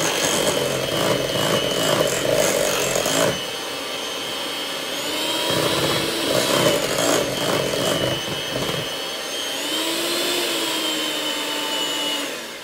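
Electric hand mixer running, its beaters whipping a thick cream cheese pie filling in a glass bowl. It is heaviest for the first three seconds, then runs lighter with its motor whine shifting in pitch, and winds down at the very end.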